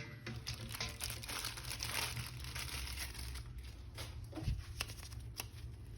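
Packaging being handled and unwrapped during a toy unboxing: continuous crinkling and rustling with small crackles and brief tearing sounds.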